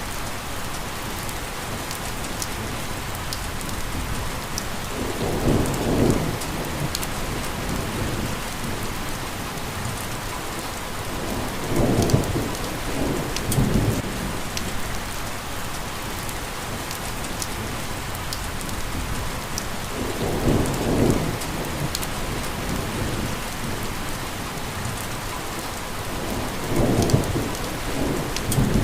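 Steady rain hissing, with close drops ticking sharply now and then. Low rumbles of thunder roll in four times, a few seconds each, about every seven seconds.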